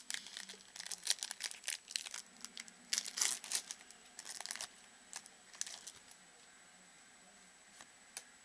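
A 2009 Upper Deck Football card pack's wrapper being torn open and crinkled in the hands. It makes a dense crackling for about five seconds, which thins out and stops about six seconds in.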